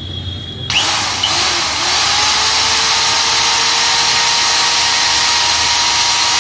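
A 5-inch angle grinder's electric motor, running with a newly fitted armature and carbon brushes and with its gear head off, switches on about a second in. Its whine rises quickly, then holds steady at full speed. The motor runs smoothly, without sparking.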